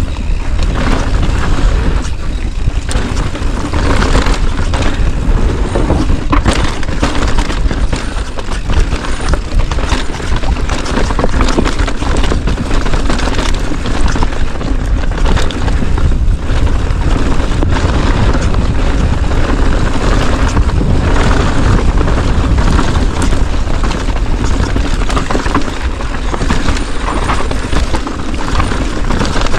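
Loud, continuous wind buffeting and rumble on a moving action camera's microphone, with frequent knocks and thumps.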